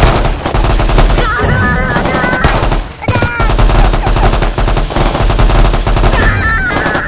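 Battle sound effects of continuous rapid machine-gun fire. Brief wavering high tones sound over it about a second and a half in, again around three seconds, and near the end.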